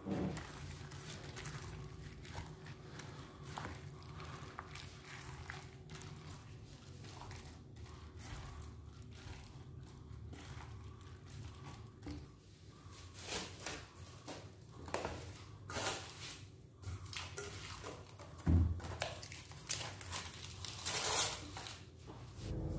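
Gloved hands faintly squishing pork pieces in a thick marinade in a stainless steel bowl. Past the middle, plastic cling wrap is pulled, torn and crinkled over the bowl in several loud crackly bursts, with one low thump.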